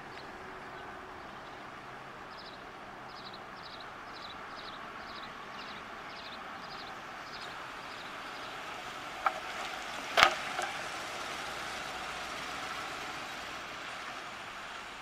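1976 Buick Electra's V8 running faintly as the car rolls up at low speed, under a steady outdoor background noise. A run of short high chirps, about two a second, sounds in the first half, and two sharp clicks about a second apart past the middle are the loudest sounds.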